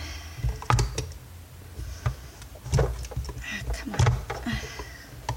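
Hands working a wire connector loose inside a vacuum cleaner being taken apart: a handful of sharp plastic clicks and knocks over a low rumble of handling.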